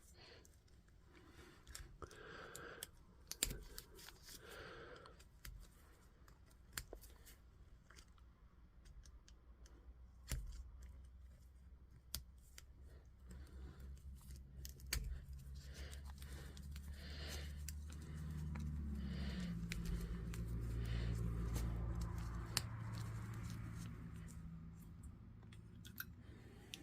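Faint clicks, scrapes and small knocks of small metal parts and hand tools being handled during the impact driver's chuck disassembly. A low steady hum comes in about halfway through and is loudest in the later part.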